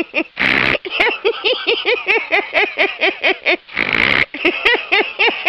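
A woman laughing hard and without a break: a fast string of pitched 'ha' sounds, about four or five a second, with a gasping intake of breath twice.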